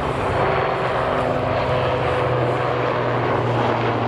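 Super Puma twin-turbine helicopter in flight overhead: a steady drone of main rotor and turbines, with a constant low hum.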